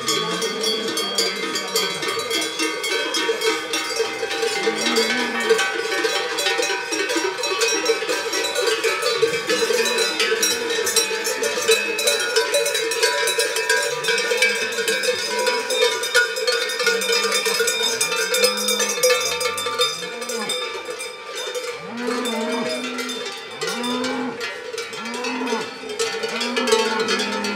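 Many cowbells clanking and ringing continuously as a herd of cattle walks past. Cows moo now and then, several times in quick succession near the end.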